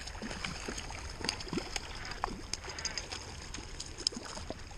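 Stream water lapping over a low rumble, with scattered small splashes from a hooked rainbow trout thrashing at the surface; the sharpest splash comes about four seconds in.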